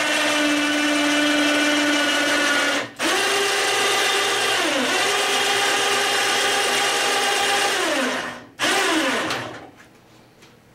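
Handheld power tool's motor running at a steady high whine. It stops about three seconds in and restarts at a higher pitch, sags briefly under load, then winds down near the end. A short final burst follows, falling away.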